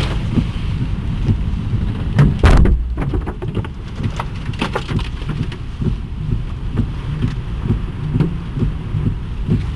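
Tornado wind pounding on the microphone in a steady low rumble, with debris striking around: one loud hit about two seconds in, followed by a spell of smaller knocks.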